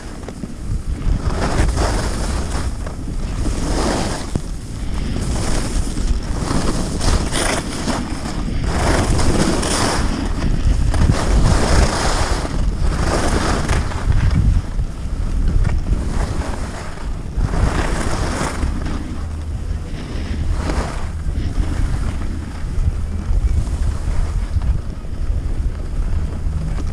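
Wind buffeting a GoPro's microphone while skiing downhill, a steady low rumble, with ski edges scraping and hissing on the snow in surges every few seconds as the skier turns.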